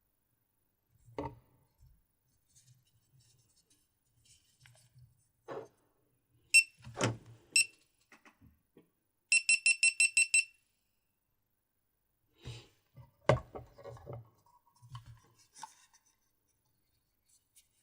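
Electronic beeps from a GoPro Hero 4 Silver camera: two single high beeps about a second apart, then a quick run of about eight beeps. Light clicks and knocks of the camera and packaging being handled come in between.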